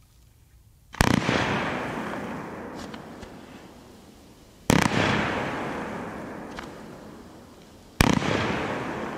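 Low-noise firework battery with a red and green falling-leaves effect, firing three shots about three and a half seconds apart. Each is a sharp pop followed by a long hiss that fades as the effects burn and drift down.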